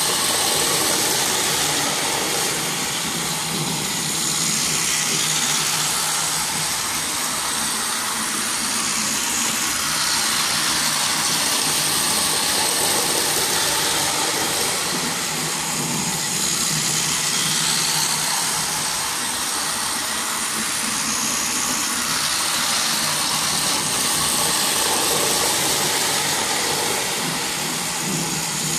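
Battery-powered plastic toy trains running on plastic track: a steady whirring of their small electric motors and wheels.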